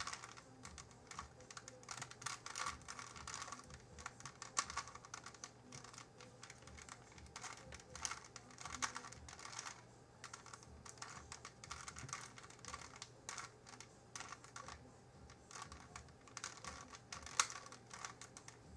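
Rubik's Cube being turned by hand: rapid, irregular plastic clicks and rattles as the layers are twisted while the puzzle is being solved.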